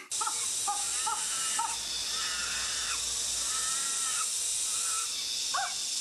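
Short, arching animal calls played through an animatronic chimpanzee model's sound system, quick ones at first and then longer, drawn-out ones, over a steady high hiss.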